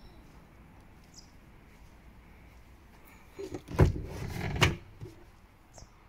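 A cluster of knocks and rattling from the luggage cover in a Hyundai Ioniq 5's boot being handled, with two sharp knocks about a second apart, a little past halfway. Faint bird chirps twice.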